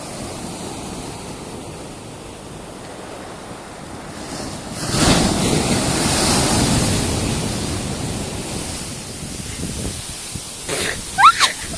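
Ocean surf on a beach: a steady wash of waves, with one wave breaking about five seconds in and its wash slowly fading afterwards.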